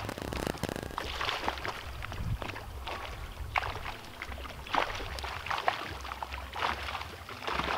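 Pond water splashing and sloshing in irregular bursts as a seine net is hauled through it by people wading, over a steady low rumble.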